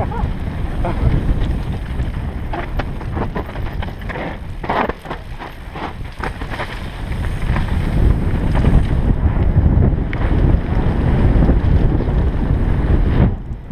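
Wind rumbling on an action camera's microphone during a fast mountain-bike descent on a gravel trail, with short clatters from the bike and tyres going over rough ground. The rumble grows louder from about 8 seconds in.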